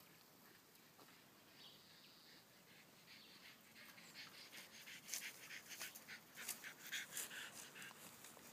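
Faint footsteps rustling through dry grass and fallen leaves, quiet at first, then a quick, irregular run of light crackles from about three and a half seconds in.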